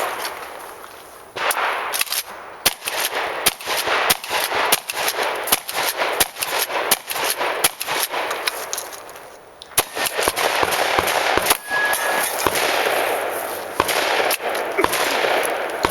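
Shotgun fired in rapid strings of shots, one after another. There is a lull of about a second and a half near the middle, then the rapid fire resumes.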